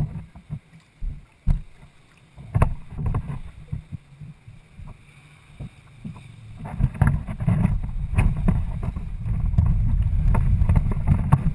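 Kayak hull being hauled out of the water and moved over the ground: scattered knocks and bumps at first, then from about six seconds in a loud, rough low rumble as it is pulled along.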